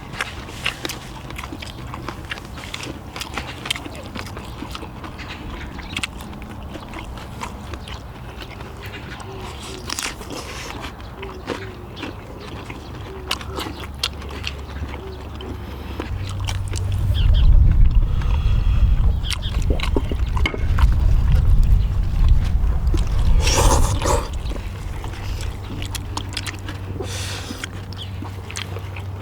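People chewing and eating, with frequent light clicks of chopsticks and dishes. For several seconds past the middle a loud low rumble covers it.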